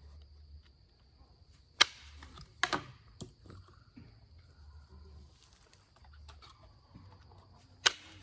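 Light indirect-percussion strikes on an Onondaga chert point: a hammer tapping a punch set on the stone's base to thin it. Several sharp clicks: one about two seconds in, a pair about a second later, and a loud one near the end.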